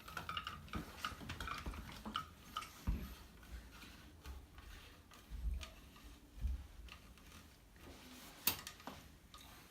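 Light plastic clicks and ticks, with a few soft knocks and one sharper click near the end, as a crib mobile's arm is spun down onto its threaded mount.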